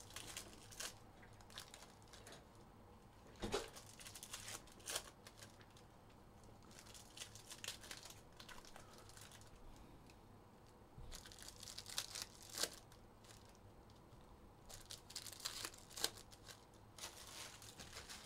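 Faint tearing and crinkling of trading card pack wrappers as packs of 2022 Panini Select Football are ripped open and handled, coming in several short crackly spells.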